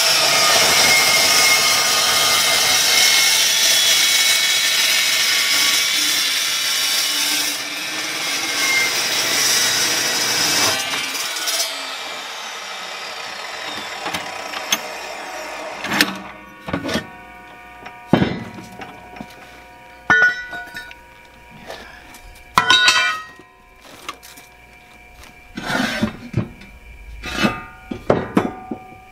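DeWalt metal-cutting chop saw cutting through square steel tubing, loud for about eleven seconds, then the blade spinning down. After that, scattered sharp clanks of steel pieces being handled.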